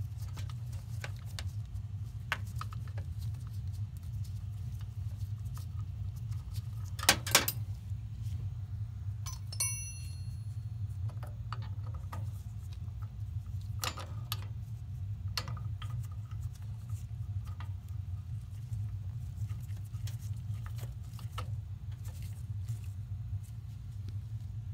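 Scattered small clicks and rustles of gloved hands handling wires and push-on connectors at a furnace's gas valve and ignition control, over a steady low hum. Two sharp clicks about seven seconds in are the loudest sound, and a brief ringing ping follows a couple of seconds later.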